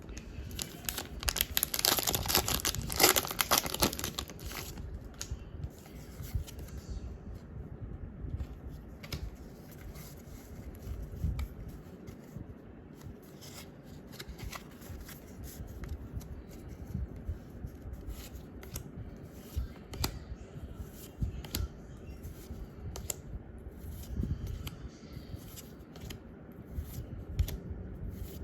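A foil Pokémon booster pack torn open, a loud crinkly tearing for about three seconds near the start. Then the short clicks and rustles of trading cards being slid and flipped through by hand.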